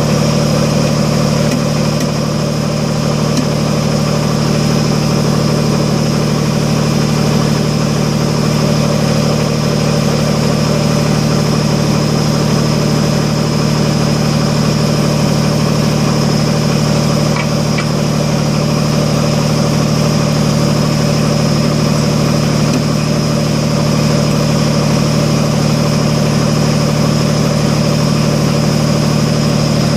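Kubota BX25D compact tractor's three-cylinder diesel engine idling steadily.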